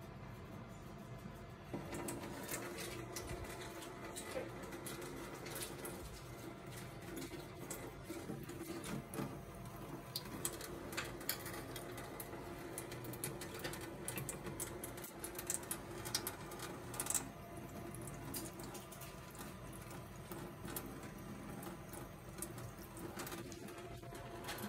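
Automated laboratory instrument for blood samples running after being started on a rinse program: a steady mechanical hum that steps up about two seconds in, with irregular clicks and ticks throughout.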